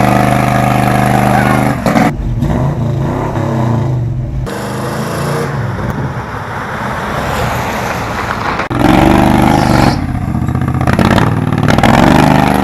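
Car engine running loudly and revving, heard in several abrupt segments: a steady even pitch for about two seconds, then rising and falling revs, with sudden changes in sound partway through and again near the two-thirds mark.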